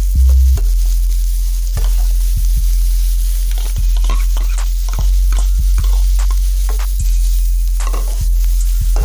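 Vegetables sizzling as they fry in a pan, with a utensil stirring them and knocking and scraping against the pan in many irregular clicks.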